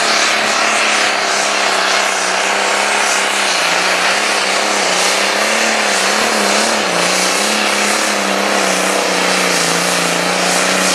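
Light super stock pulling tractor's engine running flat out under heavy load while dragging the weight-transfer sled, a steady loud note that wavers briefly midway through the pull.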